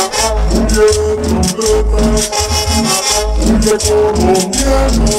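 Cumbia music: drums and saxophone over a steady bass beat, with high percussion keeping an even rhythm.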